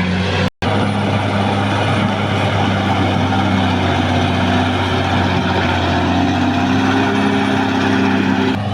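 Caterpillar D6R XL bulldozer's diesel engine running steadily, with its pitch creeping up slightly in the second half. All sound drops out for a split second about half a second in.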